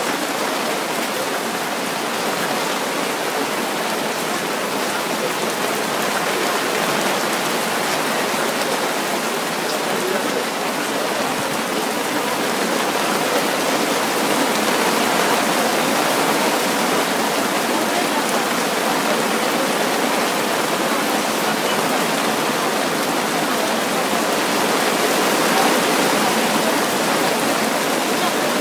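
Steady rain falling: an even, unbroken hiss of downpour.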